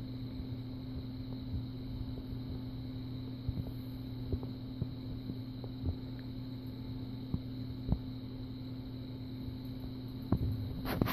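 Ginger tabby kitten purring in a steady low throb while sucking on a finger, with faint soft clicks of suckling scattered through.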